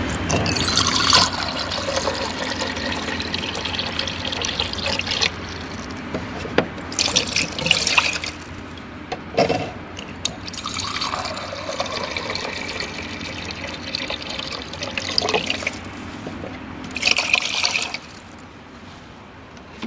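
Water purifier dispensing water into a container in two long pours of about five seconds each, the pitch of the filling gliding down as it runs. Shorter spurts of water come between the pours and near the end.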